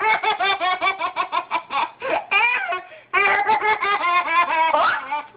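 Baby laughing hard in quick, repeated high-pitched ha-ha pulses, about seven a second, in two long runs with a short catch of breath about three seconds in.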